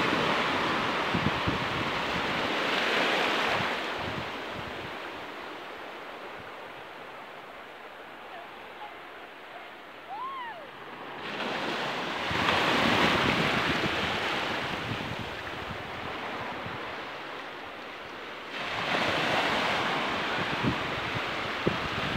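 Small sea waves breaking and washing up a sandy beach, the surf swelling louder three times, roughly every seven to eight seconds, with wind buffeting the microphone.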